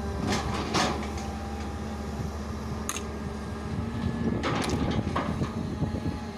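Hitachi UH083 long-reach excavator's diesel engine running steadily, with a hydraulic hum that swells about four seconds in as the long arm moves the bucket. Several short sharp knocks from the working arm and bucket come through over it.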